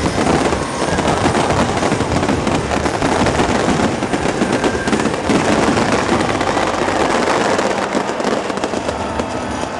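Fireworks display going off in a dense, continuous barrage of crackling and popping. The low rumble under it fades about three-quarters of the way through.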